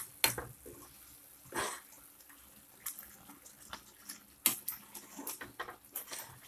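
Metal spatula stirring thick, roasted tomato-masala gravy in a kadhai: irregular scrapes and clicks against the pan, with the wet slap of the gravy. The sharpest clicks come about a quarter second in and about four and a half seconds in.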